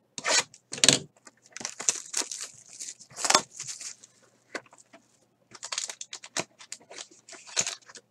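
Plastic wrapper being torn and crinkled off a sealed trading-card box, and the cardboard box opened: a run of irregular tearing and crinkling rustles with a short lull about four seconds in.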